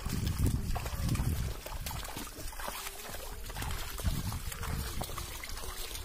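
Muddy water sloshing and splashing as a pair of oxen and a wooden plough wade through a flooded field, in a run of small irregular splashes. Wind rumbles on the microphone in the first second or so and again later on.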